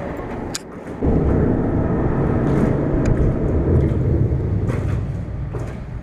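Low, steady rumble of road traffic crossing the bridge deck overhead. It comes in suddenly about a second in and eases off near the end, with a few light clicks on top.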